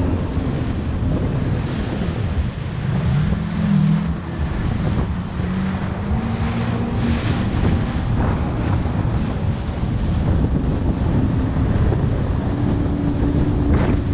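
Jet ski engine running under heavy wind buffeting on the microphone, its pitch wavering up and down a few seconds in, with water noise.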